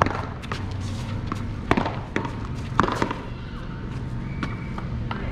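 Paddleball rally: solid paddles smacking the ball and the ball cracking off the concrete wall, a few sharp hits in the first three seconds, the loudest about three seconds in, then the rally ends.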